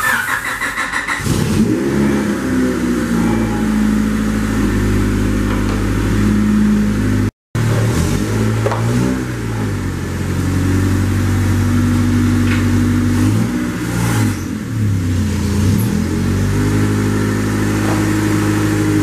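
A Honda Civic's four-cylinder engine just started and running, its pitch swinging up and down a few times as the throttle is worked.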